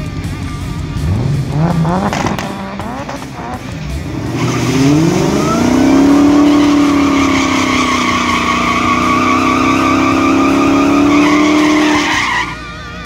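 Dodge Challenger Hellcat's supercharged V8 revving twice briefly, then climbing and held at high revs for several seconds while the rear drag tire spins and squeals in a burnout; the engine cuts off suddenly near the end.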